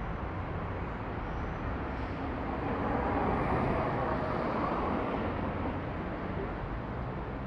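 Street traffic noise, an even rush that swells as a vehicle passes about three seconds in and then eases off.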